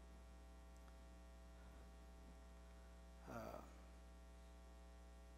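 Near silence over a steady low electrical hum, with one brief vocal sound a little past three seconds in.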